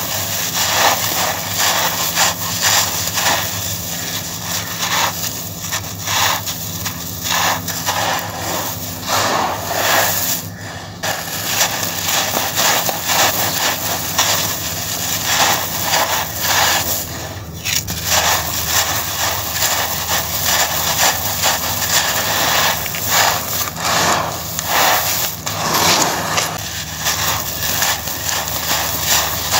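Hands crushing and crumbling clumps of coarse, stony sand, the grains falling onto a sand-covered wooden slab: a continuous dense gritty crunching with a couple of short lulls.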